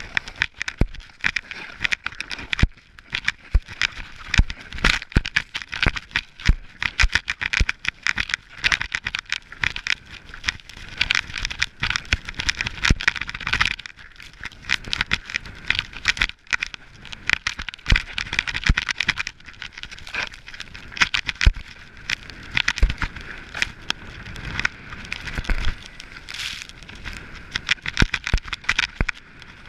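Snow crackling and scraping under a rider's edges while descending a powder slope, in a dense, irregular run of crunches, with wind noise rumbling on the camera's microphone.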